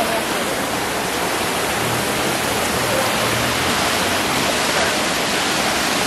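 Water rushing down a waterfall, heard up close: a loud, steady rush.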